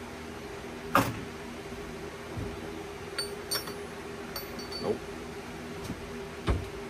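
Metal tools and parts clinking and knocking on a metal workbench: a sharp knock about a second in, a few light ringing clinks around the middle, and a dull thump near the end, over a steady low hum.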